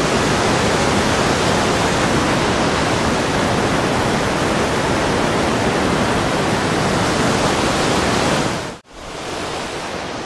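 Mountain river rushing over boulders: a loud, steady wash of water noise. It cuts off suddenly near the end and comes back quieter.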